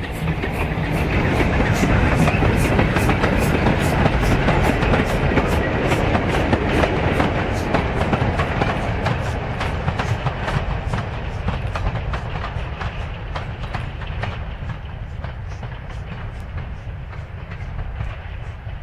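A train passing close by, its wheels clicking over the rail joints about three times a second over a steady rumble. It is loudest in the first half and fades away towards the end.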